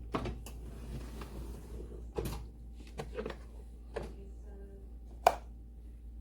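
A series of short clicks and knocks, like parts being opened, closed and set down, with the loudest sharp knock about five seconds in, over a low steady hum.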